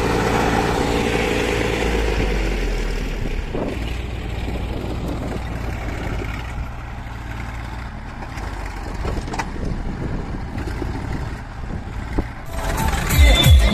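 Massey Ferguson tractor's diesel engine running steadily while its tipping trolley is raised to dump a load of soil. The engine eases off about two-thirds of the way through. Background music with a strong beat comes in near the end.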